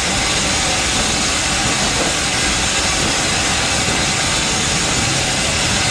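Steam locomotive hissing steam loudly and steadily, over the low rumble of a train moving slowly through the station.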